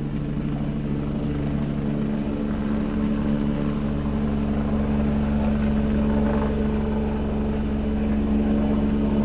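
A steady low hum of several held tones, slowly growing louder.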